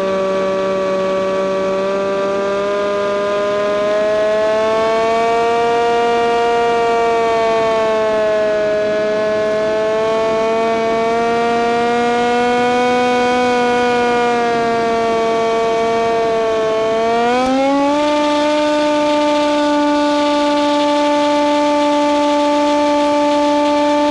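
Electric motor and propeller of a Hawk Sky RC glider droning with a slowly wavering pitch at low throttle. About three-quarters of the way through, the pitch rises quickly to a higher, steady tone as the throttle is opened.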